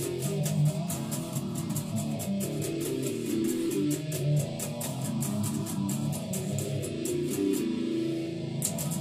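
Electric guitar being picked, a busy run of low-to-mid notes. A fast, even high ticking of about five a second runs alongside and drops out for a moment near the end.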